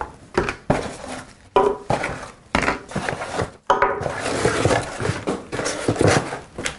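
Hands unpacking a cardboard box: irregular scraping, rustling and knocking of cardboard dividers and packed parts being lifted out.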